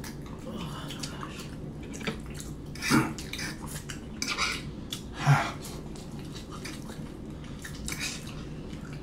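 Metal forks clinking and scraping against a baking tray while picking at fish and rice, in irregular small clicks, with a couple of louder ones about three and five seconds in.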